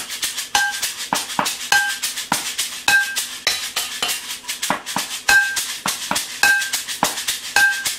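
Improvised kitchen percussion: a homemade shaker rattled in a steady rhythm while a wooden stick beats on an oatmeal-canister drum and an upturned cooking pot. Many strokes carry a short ringing note.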